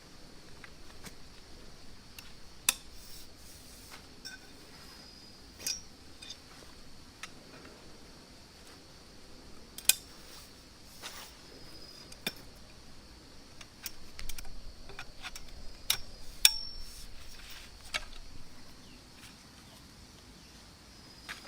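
Kitchenware being handled: scattered sharp clicks and light clinks a few seconds apart, with a busier stretch about two-thirds of the way through.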